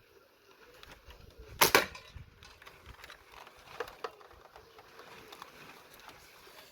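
Homemade slingshot rifle firing: one sharp double crack about one and a half seconds in, then two faint clicks a couple of seconds later.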